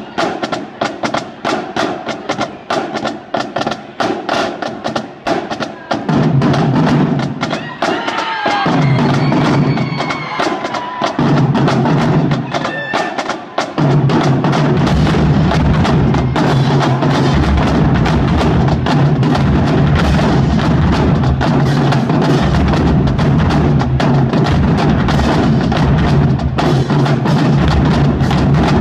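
School drumline playing: a fast run of stick clicks and sharp wood-like taps, then bass drums come in about six seconds in, starting and stopping, and from about fourteen seconds the full line plays without a break.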